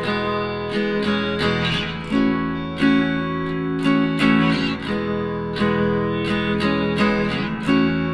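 Background music: strummed acoustic guitar playing chords in a steady rhythm.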